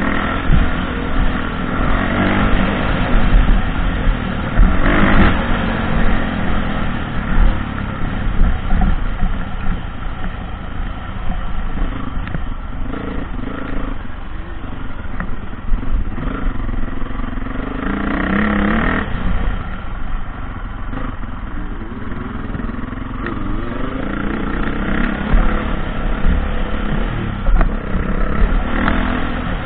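Dirt bike engine being ridden on a dirt track, its note rising and falling with the throttle, with a sharp rev-up about two-thirds of the way in. Heavy wind rumble on the helmet-mounted microphone runs underneath, with occasional knocks from the bike over bumps.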